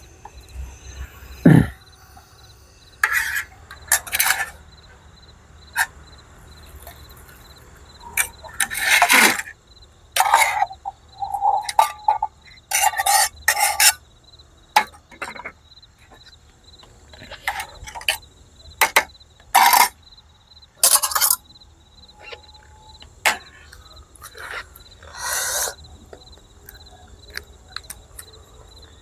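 Aluminium camping cookware clinking and knocking: a metal spoon and the pots struck and set down over and over while hot bakso broth is served into a bowl. Crickets chirp steadily throughout.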